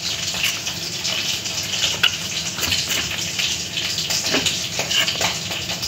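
A steady rushing hiss in the background, with a few faint scrapes and taps of a knife blade against the side of a metal cake tin as it is run around the edge to loosen the cake.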